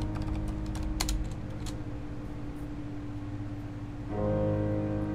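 Slow background music of sustained chords, with a new chord swelling in about four seconds in. A few keystrokes on a mechanical computer keyboard in the first two seconds, then a pause in the typing.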